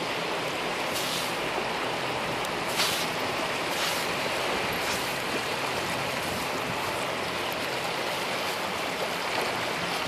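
Surf washing on a sandy shore: a steady hiss, with a few short, brighter hisses now and then.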